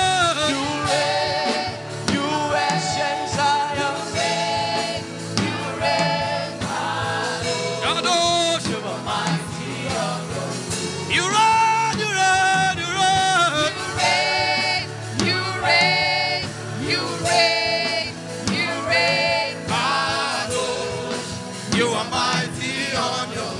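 Gospel worship music: singing voices over sustained instrumental backing.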